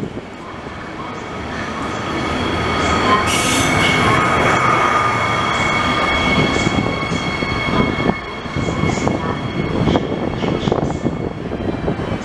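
Israel Railways passenger trains, including red double-deck coaches, rolling slowly through curves and points, with a rumble that builds over the first two seconds. Steady high wheel squeal rings over the rolling noise, with a few short knocks from the wheels over the points.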